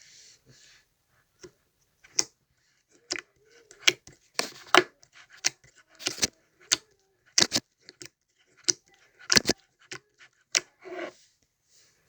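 Slime being squeezed and pressed by hand, giving irregular sharp pops and clicks as air pockets in it burst, with softer squishing between them.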